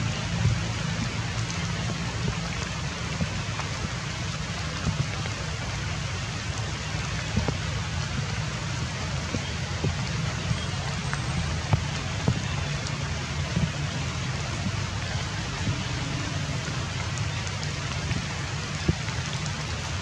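Light rain falling steadily on foliage, with single drops ticking sharply at irregular moments.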